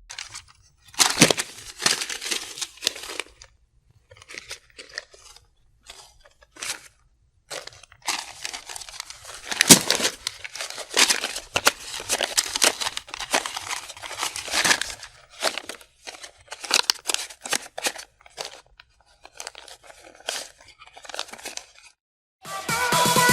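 Paper being rustled and crumpled by hand: irregular bursts of crackling, some short and sparse, others in long dense runs, with brief silent pauses between them. Music starts just before the end.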